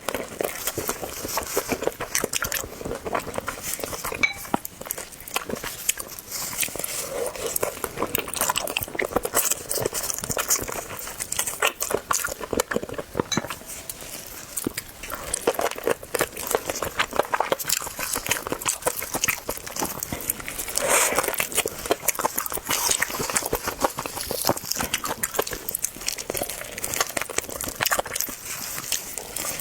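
A person biting and chewing a pork trotter with its tendons: a close, dense run of small mouth clicks and smacks.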